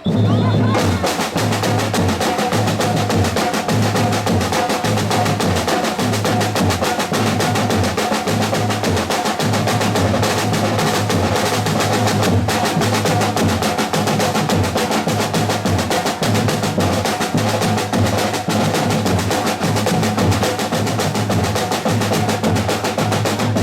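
Music with a busy percussion beat of rapid wood-block-like clicks and drums over a pulsing bass line, starting abruptly.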